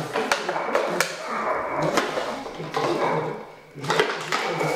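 Empty plastic water bottles crackling and clattering on a tile floor as a Czechoslovakian wolfdog puppy carries one in its mouth and bats at others, with several sharp plastic knocks against the tiles.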